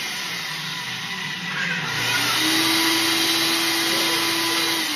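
Personal bullet-style blender motor running on a cup packed too full of frozen cashew and pistachio cubes, a steady whir. About two seconds in it gets louder and settles into a steady hum.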